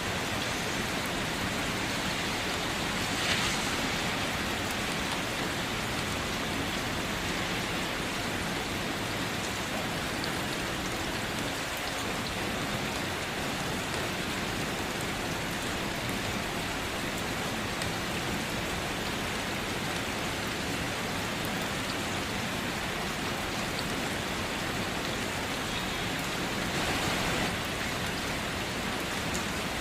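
Steady rain falling as an even hiss of drops, with two brief louder swells, one about three seconds in and one near the end.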